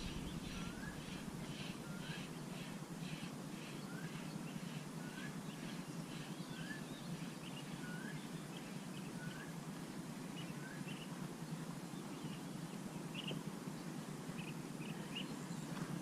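Bird calling: a short rising whistled note repeated about once a second, stopping about nine seconds in, over a faster run of higher chirps that grow sparser. A steady low background rumble of outdoor noise runs underneath.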